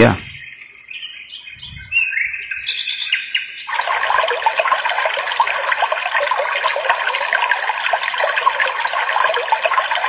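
A brief low thump at the very start, then an alarm clock's recorded birdsong alarm sound played through a small portable speaker. First a few separate chirps, then from nearly four seconds in a dense, steady chorus of chirping.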